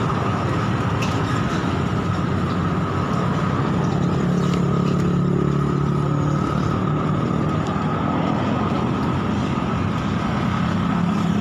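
Roadside traffic: a steady din of motorcycle and car engines running and passing. A low engine hum grows stronger for a few seconds about four seconds in, and again near the end.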